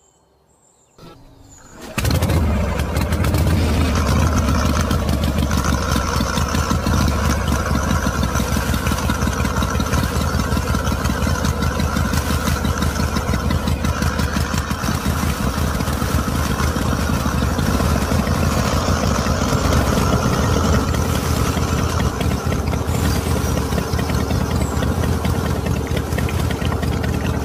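A small single-cylinder stationary diesel engine catches about two seconds in after a short near-quiet moment, then runs steadily at a fast, even beat.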